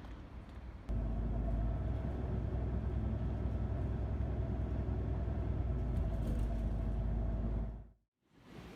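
Car on the move: a steady low rumble of engine and road noise, which begins suddenly about a second in and fades out near the end.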